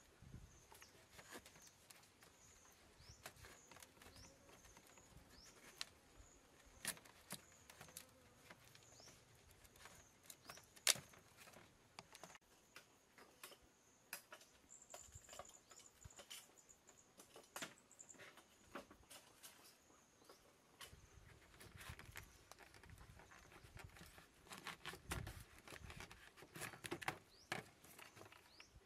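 Near-quiet room tone with sparse faint clicks and taps of a kitchen knife cutting pumpkin against a woven bamboo tray. One sharper click comes about eleven seconds in, and the taps cluster near the end. A faint high chirping carries on in the background.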